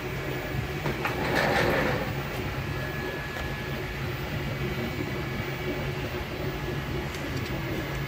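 MakerBot Replicator desktop 3D printer running a print: its stepper motors run with a steady, uneven rhythmic whir and low hum. A brief louder noise comes about a second in.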